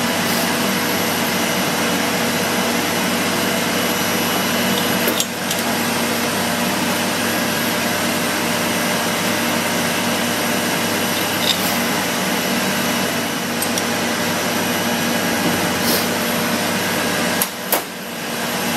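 Steady mechanical hum and hiss, like a running fan or blower, holding an even level throughout. A few light clicks are heard over it, around a third of the way in and again near the end.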